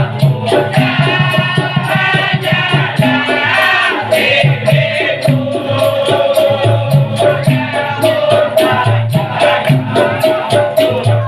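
Dikir barat music: a fast, even shaker rhythm with drums under a pitched melodic line, running without a break.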